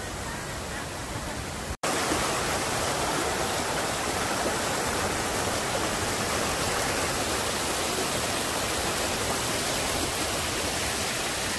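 Stream water rushing and splashing over rocks, a steady hiss. It cuts out for an instant just under two seconds in, then comes back louder and closer.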